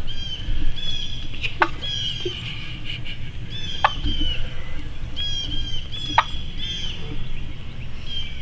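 Wild turkeys calling: repeated short, high chirping calls, cut by a sharp, piercing note about every two seconds.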